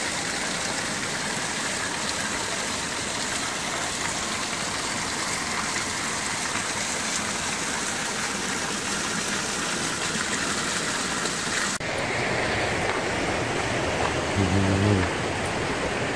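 Spring water pouring steadily from two pipe spouts and splashing onto the rocks below, a constant rushing splash. About twelve seconds in the sound cuts abruptly to a different steady rushing background, with a brief voice near the end.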